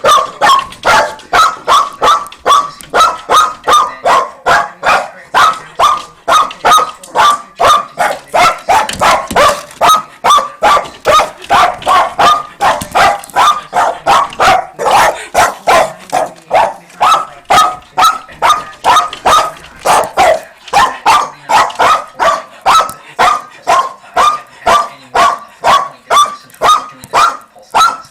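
A dog barking over and over in a steady, unbroken series of loud, fairly high-pitched barks, about two to three a second.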